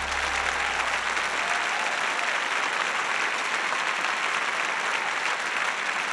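Audience applauding steadily at the close of a live performance.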